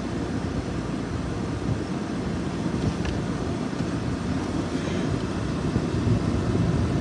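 A car engine idling steadily, a low even rumble, as it warms up in deep cold.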